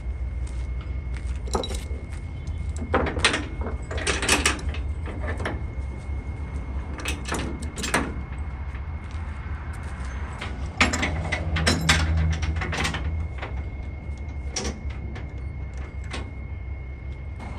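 Steel transport chains clanking and rattling in several short bursts as they are handled and tightened around wooden cable reels on a flatbed trailer, over a steady low rumble.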